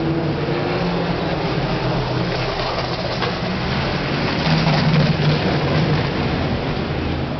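Steady low engine drone with a broad rushing noise over it, swelling briefly about halfway through.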